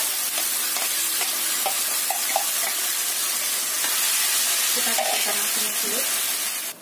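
Ground green chilli paste sizzling in hot oil in a wok as it is added for sautéing, a steady frying hiss that breaks off right at the end.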